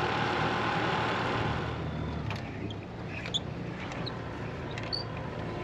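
Tender boat engine running steadily, easing down about two seconds in, followed by a few faint clicks and short high chirps.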